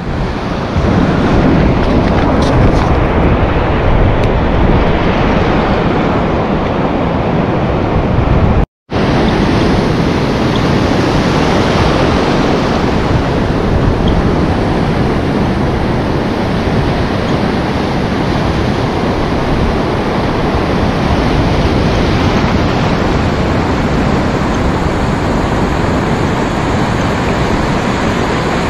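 Surf breaking and foamy wash running over the sand, a steady rushing noise. It cuts out for a moment about nine seconds in.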